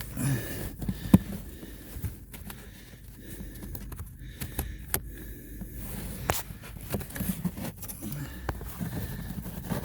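Handling noises as a pleated cabin air filter is pushed and worked into its plastic housing: scattered scrapes and light knocks, with one sharp click about a second in, over a steady low hum.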